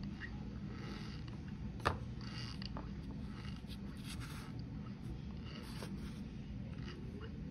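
A metal spoon pressing and scraping through cold powdered starch in a glass bowl, giving a series of short squeaky crunches about every half second. There is one sharp click about two seconds in.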